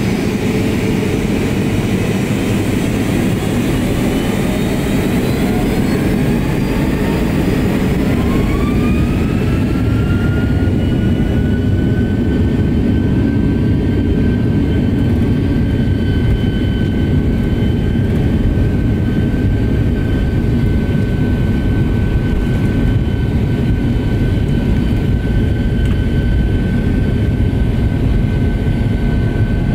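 Boeing 757-200's twin jet engines spooling up to takeoff thrust for the takeoff roll, heard from inside the cabin. A whine rises in pitch over about the first ten seconds and then holds steady over a loud, deep rumble.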